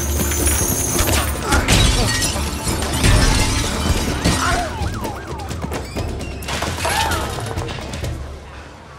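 Film action soundtrack: music score with glass shattering and crashing as a man smashes through a storefront window, and wailing glides over the top; the mix fades down near the end.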